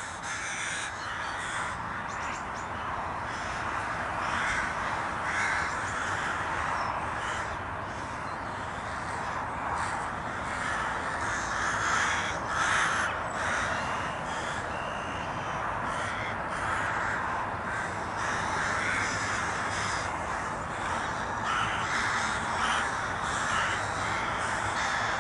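Many crows cawing at once, a continuous chorus of overlapping caws.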